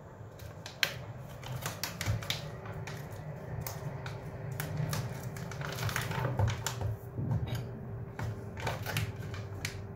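A paper coffee filter crinkling and crackling as it is handled and fitted into a plastic V60 dripper, with irregular clicks of handling, over a low steady hum.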